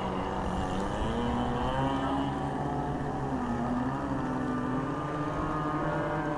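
Radio-controlled model speedboat running fast across open water, its small engine buzzing steadily with the pitch wavering up and down.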